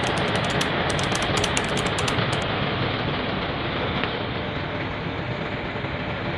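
Steady noise of diesel engines running on a ferry's steel vehicle deck, with a few faint light clicks in the first couple of seconds.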